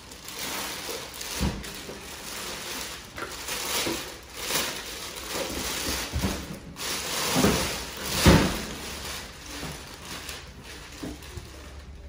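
Rustling, scraping and a few dull knocks of packaging and appliance parts being handled during an unboxing, with one louder knock about eight seconds in.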